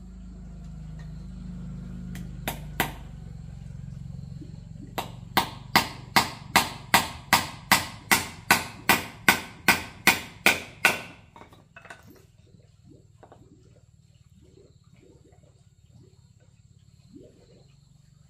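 Hammer driving nails into small pieces of wood: two taps, then a steady run of about sixteen blows at roughly two and a half a second that then stops, followed by a few faint knocks of wood being handled.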